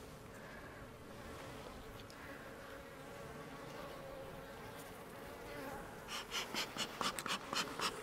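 Honey bees buzzing at an open hive, a faint steady hum. About six seconds in, a quick run of short puffs begins, about three or four a second: the bellows of a bee smoker being pumped over the frames.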